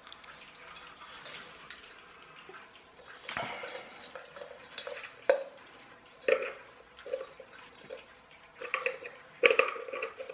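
Irregular light clicks and knocks as the touch lamp's base and the plastic terminal strip and wires inside it are handled, a handful of separate hits with the loudest near the end.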